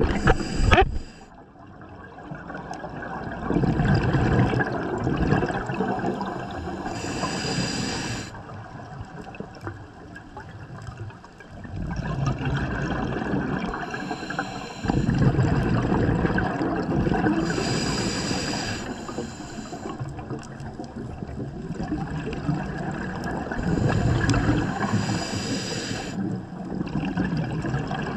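Scuba diver breathing through a regulator underwater: a hiss with each breath in and a gush of bubbling exhaust bubbles with each breath out, about three breaths in all. A sharp click just under a second in.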